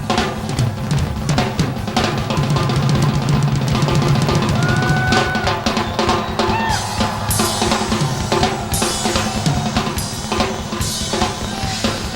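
Drum kit played fast and freely, a wild improvised drum solo with dense snare and bass drum hits. Crash cymbals are struck again and again in the second half.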